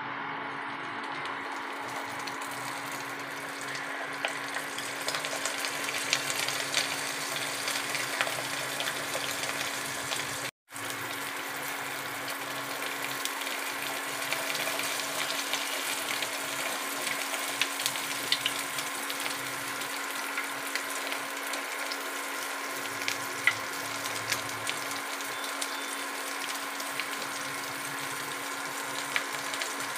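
Karayappam (unniappam) batter sizzling and crackling as it deep-fries in hot oil in the cups of an appam pan. It is a steady hiss dotted with many small pops, broken by one very short gap about a third of the way in.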